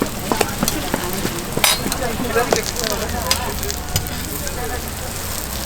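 Hotteok frying in oil on a griddle, sizzling steadily, with a few sharp clicks, the loudest about one and a half seconds in and again about four seconds in.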